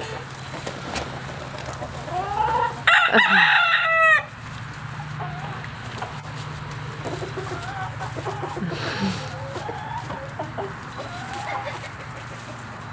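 A rooster crows once, loud and about a second and a half long, about three seconds in, with chickens clucking softly before and after it.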